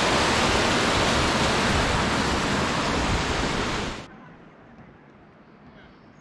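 Steady rush of fast-flowing water, an even noise across all pitches, that cuts off abruptly about four seconds in. It leaves quiet outdoor ambience with a faint high bird chirp near the end.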